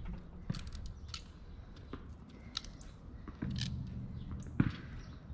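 Footsteps on a hard tennis court with scattered light ticks, and one sharp knock about four and a half seconds in.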